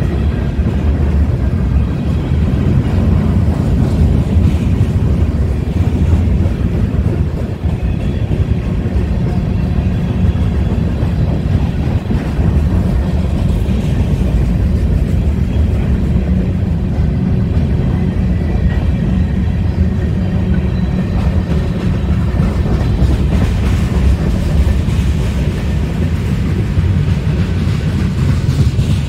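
Freight cars of a BNSF manifest train (tank cars, boxcars, covered hoppers) rolling past: a steady low rumble of steel wheels on the rails.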